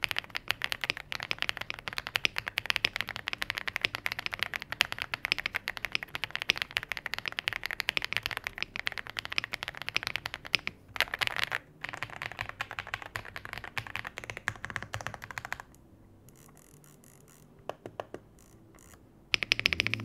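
Aula F99 Pro mechanical keyboard being typed on for a sound test: fast, continuous key clacks for about fifteen seconds, then it goes much quieter with only a few keystrokes before the typing picks up again near the end.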